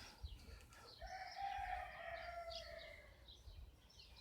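A rooster crowing once, a single drawn-out call of about two seconds that drops slightly at its end, with small birds chirping.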